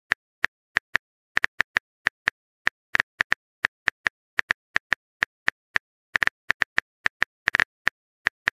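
Keyboard typing sound effect: a run of short, crisp clicks at an uneven pace of about four a second, like keys being tapped while a message is written.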